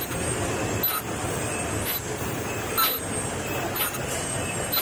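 Plastic-film bag-making machine running: a steady mechanical din with a sharp clack about once a second as the machine cycles.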